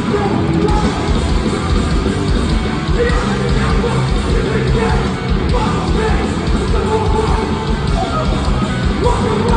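Hardcore punk band playing live at full volume: distorted guitars and drums with yelled vocals.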